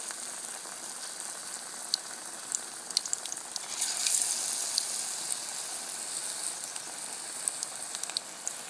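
Onion pakora batter deep-frying in hot oil in a kadai: a steady sizzle with scattered sharp pops and crackles. The sizzle swells about four seconds in, as more batter is dropped into the oil.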